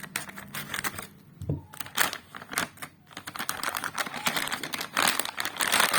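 Packaging being opened by hand: crinkling and rustling with many quick clicks and taps, busiest near the end.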